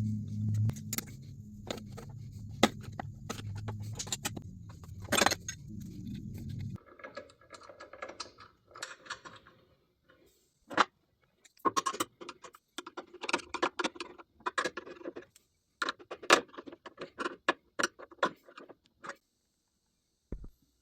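A steady low hum with scattered clicks cuts off suddenly about seven seconds in, followed by irregular light metallic clinks and clatter of small machine parts being handled during reassembly.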